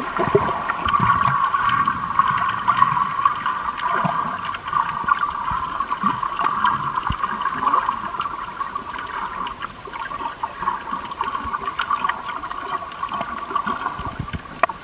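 Underwater water sound, muffled and steady, with many small crackles and clicks through it; it fades out at the very end.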